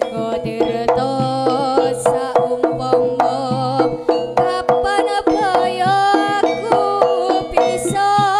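Live jaranan gamelan music: Javanese kendang hand drums beating quickly under a pitched melody, with a few cymbal splashes.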